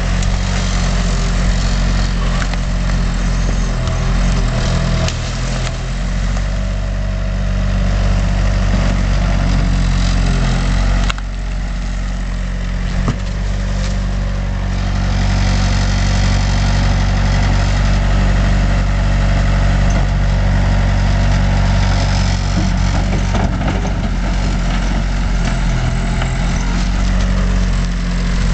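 Skid-steer loader's engine running steadily as the machine works, its note dropping for a moment about eleven seconds in and picking up again a couple of seconds later.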